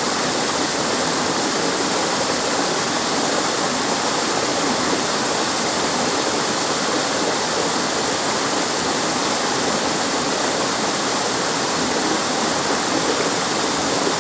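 A small waterfall on a rocky mountain stream spills into a pool, making a steady, unbroken rush of water.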